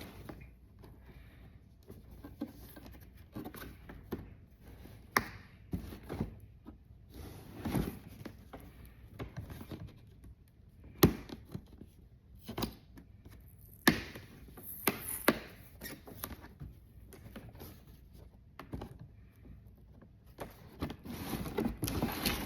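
Cardboard shipping box being opened by hand: scattered knocks, scrapes and rustles of cardboard, with a sharp knock about 11 seconds in and a longer stretch of scraping and tearing near the end as strong packing tape is pulled.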